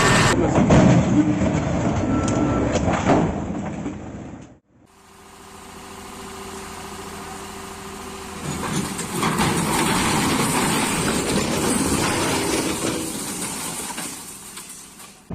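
Vehicle engine noise from two separate clips. The first cuts off abruptly about four and a half seconds in. The second starts faint with a steady hum, grows louder about halfway through and fades near the end.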